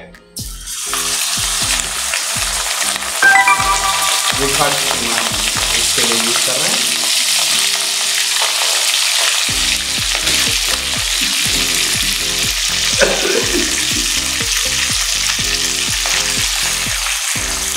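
Minced meat sizzling in hot oil in an aluminium karahi, starting suddenly about half a second in as the mince goes into the oil, then a steady frying hiss while it is stirred with a metal ladle.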